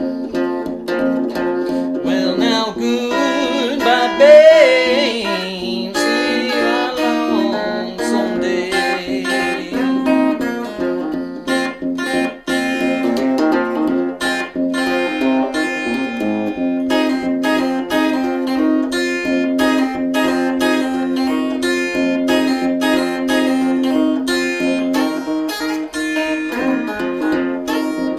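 Acoustic guitar playing a country-blues tune with a steady picked pulse over a held low note. About four seconds in, a brief wavering high line rises over the guitar.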